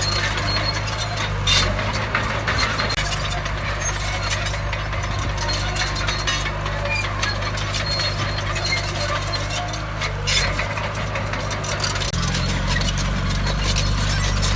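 Heavy construction machinery working: a diesel engine runs steadily under dense metallic clanking and rattling, with a couple of sharper knocks, and the engine note changes about twelve seconds in.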